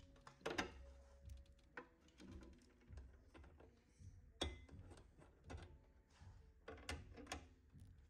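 Faint, scattered clicks and taps of copper refrigeration tubing and pliers being handled at a refrigerator compressor, the sharpest about half a second in and again past the middle.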